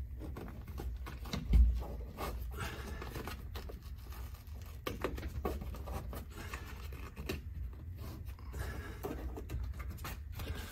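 Headliner cloth rustling and scraping as a hand pulls it tight and drags it along the glued roof edge, with a dull thump about a second and a half in.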